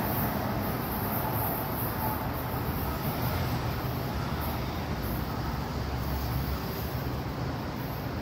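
Steady running noise of a São Paulo Metro train, easing slightly toward the end.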